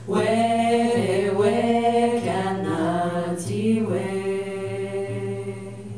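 Women's vocal ensemble singing a slow Wendat lullaby together, ending on a long held note that fades away near the end.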